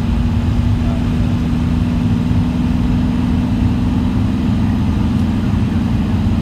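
Engine and road noise of a moving vehicle heard from inside it while cruising at steady speed: a low rumble with a steady engine hum that holds its pitch.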